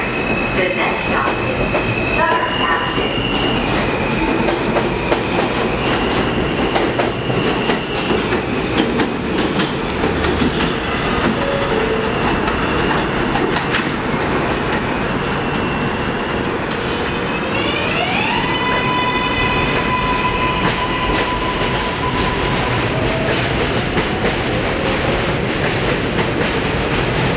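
R160A-1 New York City subway train pulling out of a station and running away down the track: a steady rumble of steel wheels on rail with clacking over the joints. High electric tones sound near the start, and about two-thirds of the way through a whine rises and then holds for a few seconds.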